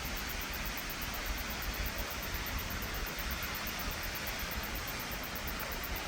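Steady rushing roar of Omanawa Falls, a waterfall, with a deep low rumble underneath.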